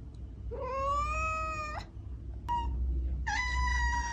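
Domestic cat meowing: a long drawn-out meow rising slightly in pitch, a brief chirp-like call, then another long meow starting about three seconds in.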